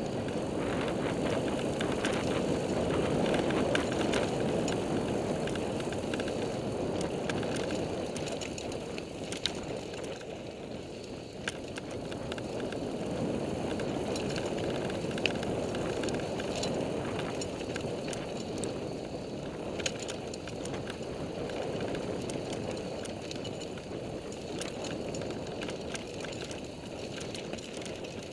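Mountain bike rolling fast down a dirt singletrack: steady rough tyre noise and wind rush on the microphone, swelling and easing with speed, with a few sharp clicks and rattles from the bike over bumps.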